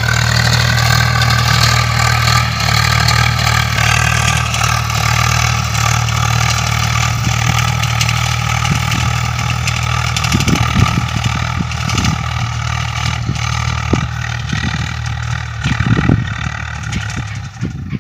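Swaraj 742 FE tractor's diesel engine running steadily as it pulls an implement across ploughed ground, growing fainter near the end. From about ten seconds in, scattered short thumps sound over the engine.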